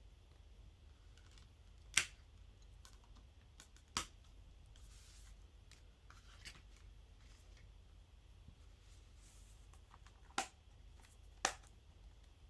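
Quiet handling of a SteelBook metal disc case: four sharp clicks or taps, about two seconds in, about four seconds in, and twice close together near the end, with faint rustling between them.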